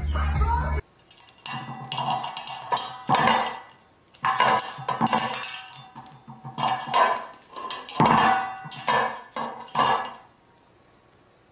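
Music that cuts off about a second in, followed by a series of irregular clinks and knocks.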